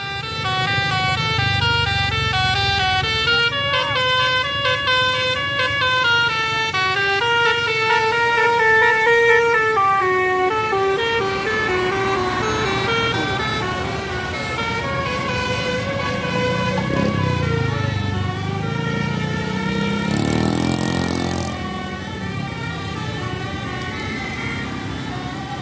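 Basuri telolet bus horn, a multi-tone air horn playing a tune of short stepped notes over the running bus engine. A brief hiss comes about twenty seconds in.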